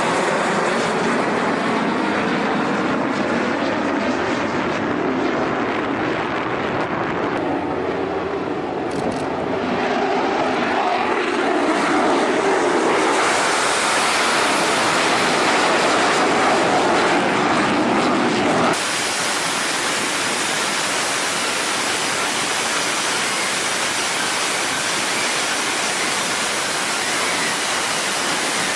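Jet aircraft engine noise, its tone shifting and sweeping as in a pass overhead. About two-thirds of the way in it cuts off suddenly to a steady, even rushing hiss.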